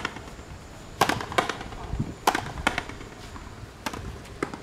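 Frontenis rally: the rubber ball cracks sharply off the racquets and the front wall of the fronton, about seven hits, mostly in pairs less than half a second apart, with a few low thuds between them.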